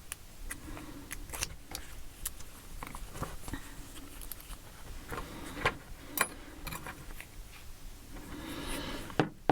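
Small, light clicks and rubbing, spaced irregularly, as tiny lock pins are handled and loaded one by one into a lock core.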